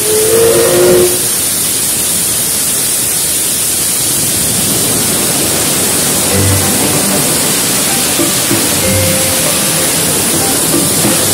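Steam locomotive venting steam: a loud, steady hiss.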